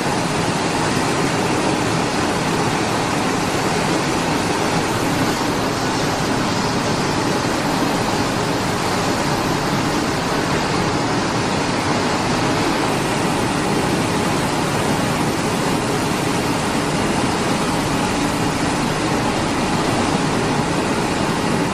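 Steady, even rushing noise of a french fry processing line's machinery and running water, with no distinct hum, beat or strike.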